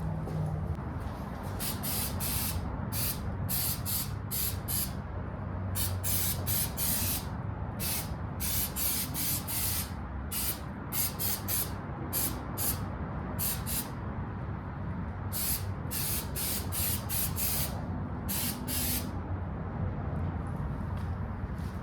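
Aerosol spray paint can sprayed in many short bursts, a hiss each time, in quick runs with brief gaps, under a steady low hum.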